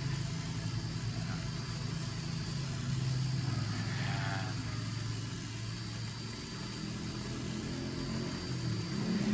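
Steady low engine hum, like an engine idling, with a faint brief higher sound about four seconds in.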